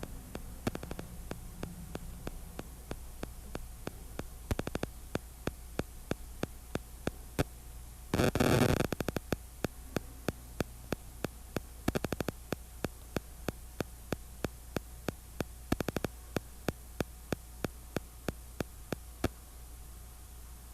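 Steady low electrical hum with sharp crackling clicks over it, a few a second, and a dense, louder burst of crackling about eight seconds in.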